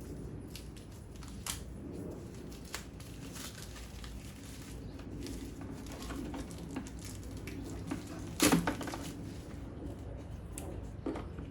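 Scattered small clicks and plastic rattles from swapping gas caps on a lawn mower's fuel tank: the temporary cap coming off and the real cap going on, with one louder knock about eight and a half seconds in.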